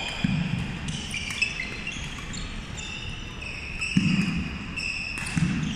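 Badminton rally on a wooden sports-hall floor: sharp clicks of rackets hitting the shuttlecock and many short squeaks of sneakers on the court, with a few low thuds of feet landing.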